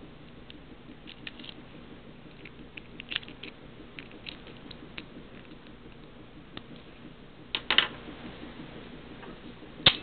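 Lock pick ticking and clicking against the wafers of a small brass wafer padlock under tension, light scattered metallic clicks with a louder flurry about three-quarters through. A single sharp click near the end as the lock gives and the shackle pops open.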